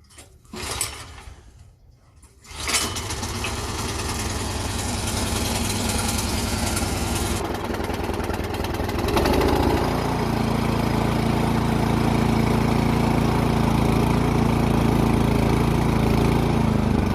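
Remington Powermore 243cc snowblower engine being started after a carburetor cleaning: a short first attempt under a second in, then it catches about two and a half seconds in and keeps running. About nine and a half seconds in, its note changes to a louder, steadier run.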